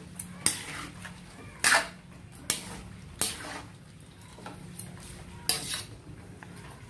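Metal ladle clinking and scraping against a metal wok while stirring chicken pieces in soy sauce: about half a dozen irregular clinks, the loudest a little under two seconds in.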